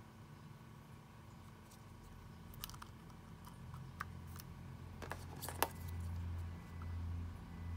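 A few sharp small plastic clicks, the loudest just past halfway, as a 1S LiPo battery's connector is pushed into a port on a small multi-port LiPo charger, with low handling rumble from the hands holding the charger.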